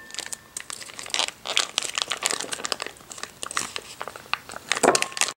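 Foil retort pouch crinkling in many small irregular crackles as it is opened and squeezed to empty a hamburg steak in demi-glace sauce onto a plate, a little louder near the end.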